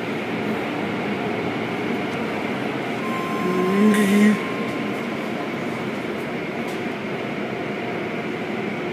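Automatic tunnel car wash running: spinning cloth brushes and water spray make a steady rushing noise, heard through the glass of a viewing window. About three and a half seconds in, a brief, louder, wavering pitched sound stands out for under a second.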